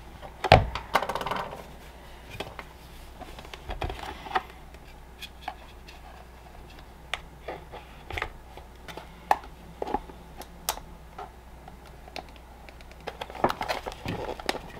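Scattered clicks, taps and short scrapes of a small pointed hand tool prying inside a plastic battery case to work the caulked-in cell pack loose, with the sharpest click about half a second in. Near the end come denser handling knocks as the pack is pulled out of the case.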